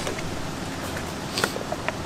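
A few light clicks from the plastic case and LED headlight bulbs being handled and taken out, over a steady background hiss.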